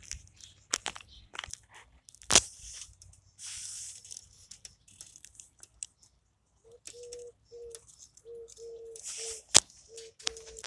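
LEGO Technic pieces being handled and pressed together: plastic pins and beams clicking and snapping, with a loud snap about two seconds in and another near the end, and rustling of the parts between.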